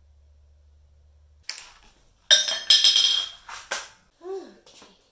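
Near silence with a low hum, then about a second and a half in a string of sharp knocks and clatter, some with a short metallic ring, from a claw hammer and nails being handled and struck on a hard tiled floor.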